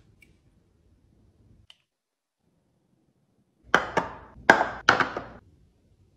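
Four quick sharp knocks about two-thirds of the way in, as clear plastic Zwilling Fresh & Save vacuum storage containers are set down and stacked on a stone countertop.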